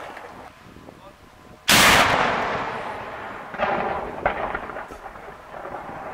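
A 70 mm breech-loading salute cannon, loaded with 250 g of black powder, fires once about two seconds in: a sudden loud blast that dies away over a couple of seconds. Quieter booms and cracks follow a second or two later.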